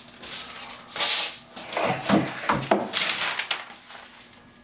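Hand sanding with 220-grit sandpaper over a cured water-based polyurethane finish on wood, lightly taking down rough spots: a run of short rubbing strokes that die away in the last second.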